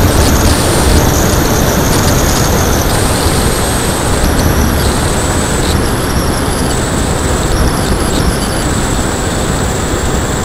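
Lanyu Raptor RC plane in flight, heard from on board: a steady, dense rush of wind and the electric motor turning the propeller, with a thin high whine that shifts pitch several times.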